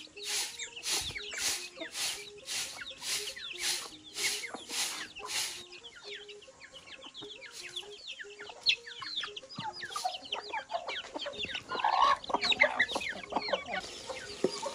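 Rice being winnowed on a metal tray, tossed in a steady rhythm of about two to three swishes a second for the first five seconds or so. Then chickens cluck and chirp around the yard. Near the end, the sizzle of tomatoes frying in hot oil in a pot.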